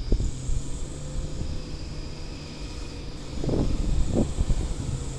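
Truck diesel engine running steadily as it drives slowly along a dirt haul road, with two brief louder sounds a little past the middle.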